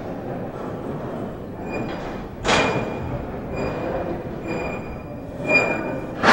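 Gym noise: a steady background din broken by two sharp clatters, about two and a half and five and a half seconds in. A faint high squeal comes and goes between them.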